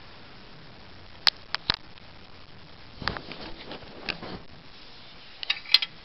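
Handling noises: a few sharp clicks and taps about a second in, a soft rustle of the duvet around the middle, and another quick cluster of clicks near the end.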